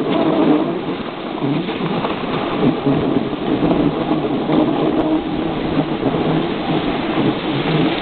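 Wind rushing over the camera microphone and a snowboard scraping across packed snow while riding downhill, a loud steady rumble and hiss.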